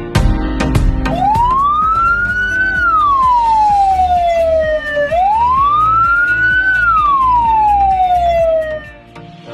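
Ambulance siren sounding a slow wail: two long cycles, each rising quickly in pitch and then sliding slowly back down over about four seconds. It plays over background music, and the siren stops shortly before the end.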